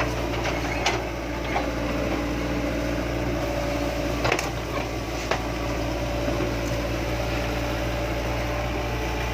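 Hitachi excavator's diesel engine running steadily at an even pitch, with a few short knocks, the loudest about four seconds in.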